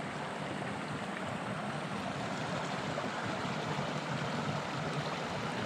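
Steady rush and burble of a hot-spring-fed stream's flowing water, close to the microphone at water level; it cuts off suddenly near the end.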